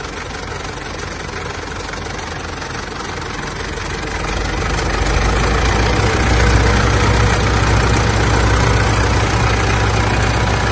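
Mitsubishi L200 Triton's 3.2 DI-D four-cylinder diesel idling with a knocking rattle from the timing chain, which the mechanic traces to a stretched chain and an over-extended tensor. The sound gets louder about five seconds in.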